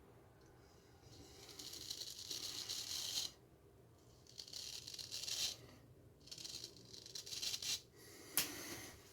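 Gold Dollar 59 straight razor scraping through lathered stubble in three runs of strokes, each a second or two long, with a sharp click near the end.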